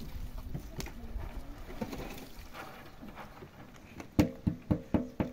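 Pomegranate seeds sliding out of a tipped metal pot into a cauldron, then five quick metallic knocks, each ringing briefly, as the pot is banged against the cauldron's rim to shake out the last seeds.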